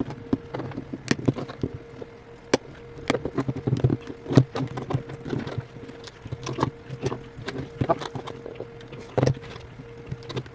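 Irregular small clicks and taps of a prying tool working around the edge of an iPhone 8's glued-down screen to lift it off, over a steady low hum.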